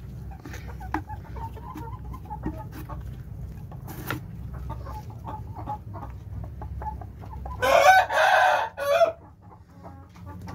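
Ayam kampung chickens clucking softly with scattered small ticks. About eight seconds in, a rooster crows loudly for about a second and a half.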